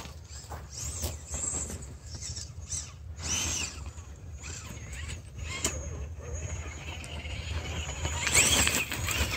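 Whine of an RC rock crawler's brushless outrunner motor and geared drivetrain, rising and falling in pitch in short bursts of throttle, loudest near the end. Scattered crunches and clicks of stones on gravel come in between.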